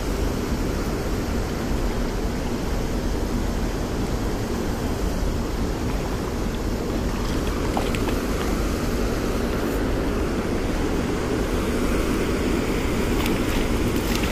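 Steady rush of water pouring from a dam spillway, with a few light splashes from a hooked rainbow trout thrashing at the surface about halfway through and near the end.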